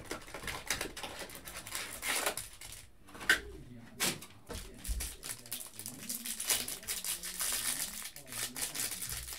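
Hands handling a cardboard hanger box of football trading cards and the plastic-wrapped stack inside: irregular rustling and crinkling with scattered light taps and clicks.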